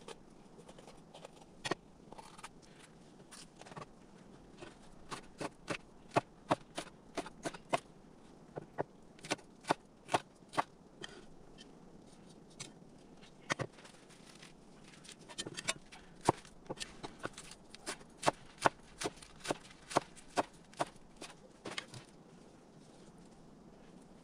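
A series of sharp knocks and clicks, coming in irregular runs of a few a second with short pauses between them.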